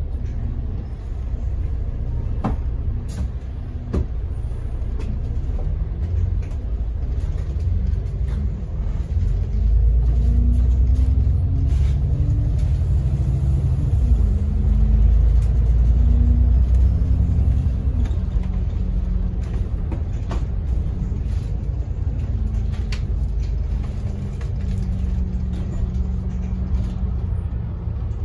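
London double-decker bus heard from its upper deck: a steady engine and road rumble, the engine note climbing as the bus gathers speed and dropping once at a gear change about halfway through, then running steadily. Occasional sharp clicks and rattles sound over it.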